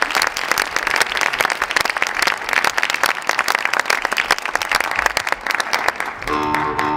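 Theatre audience applauding with dense, even clapping. Near the end the applause gives way to droning music with long held tones.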